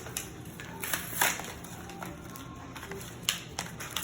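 A few sharp taps and crinkles from hands handling foil Pokémon booster packs, the strongest about a second in.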